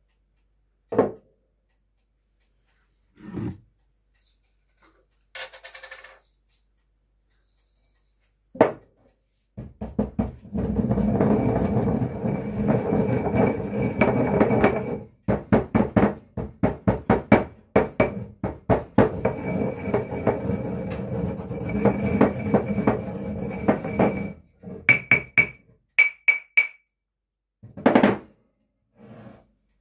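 Stone pestle working in a stone mortar: scraping grinding passes mixed with runs of quick pounding strikes, a few single knocks against the bowl before the grinding starts, and more knocks near the end.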